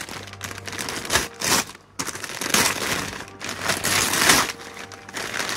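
Wrapping paper crinkling and being torn in irregular bursts as a present is unwrapped.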